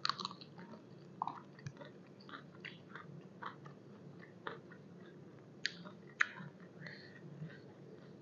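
A person chewing and biting crunchy fresh raw vegetables, with irregular crisp crunches and clicks.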